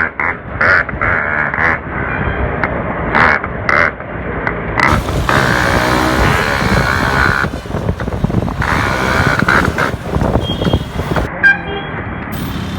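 Yamaha RX 135's two-stroke single-cylinder engine running loud through an aftermarket exhaust while the bike is ridden, revving up and easing off several times.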